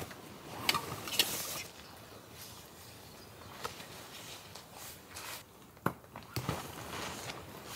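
Camping gear being handled during packing up: scattered light clicks and knocks with rustling of nylon and footsteps on the ground. The louder knocks come about a second in and again near six seconds.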